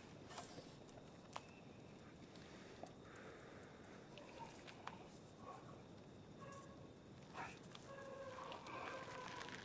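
Quiet ambience: a faint hiss with scattered soft clicks, and short, faint chirping calls that grow more frequent near the end.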